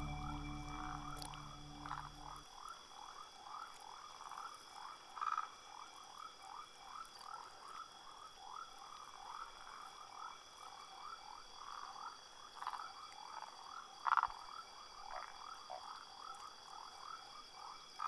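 Forest ambience of a frog chorus: short, rising calls repeating rapidly and evenly several times a second, a few standing out louder, over a steady high whine.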